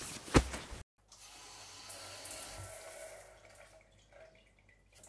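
A short, sharp sound near the start, then a faint, steady hiss of running water that grows quieter in the second half.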